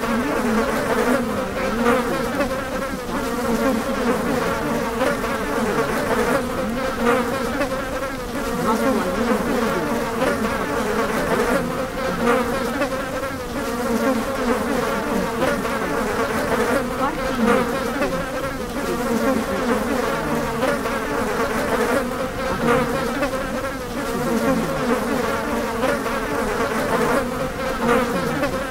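Steady buzzing of a swarm of flying insects, many wings humming together at a low pitch, swelling and fading slightly in loudness.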